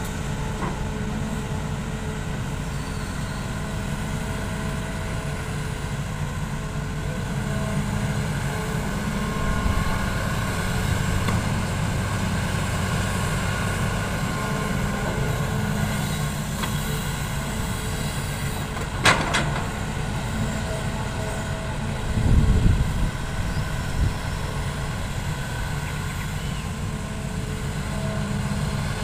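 Heavy diesel machinery running steadily: an excavator at work beside a dump truck. A sharp clank comes about two-thirds of the way through, and a heavy low thud a few seconds after it.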